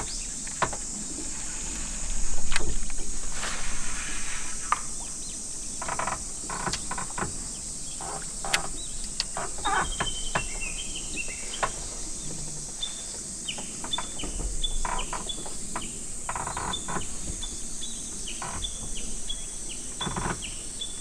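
Outdoor ambience on still water: a steady high insect drone, with a small bird chirping in short repeated calls from about halfway through. A few knocks and handling sounds, the loudest a rustling burst about two and a half seconds in.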